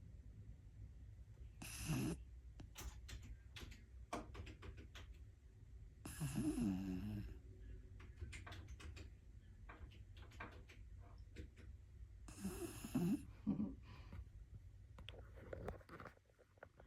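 Snoring in sleep: loud snores about two seconds in, around six seconds in, and twice in quick succession past the twelve-second mark, with quieter breathing and faint clicks between them over a steady low hum.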